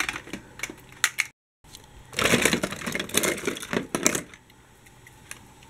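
Toy trams and buses clattering against each other and the clear plastic storage box as a hand rummages through them and pulls one out. A few scattered clicks at first, then dense clattering from about two to four seconds in, easing off near the end.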